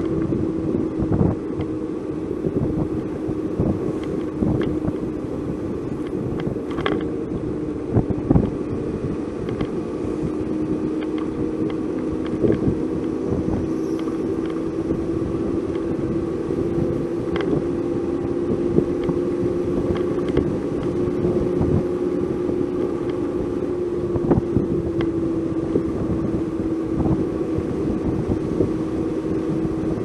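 Car driving, heard from inside the cabin: a steady engine hum that drifts slightly in pitch, over constant road rumble, with scattered short knocks and rattles from bumps in the road.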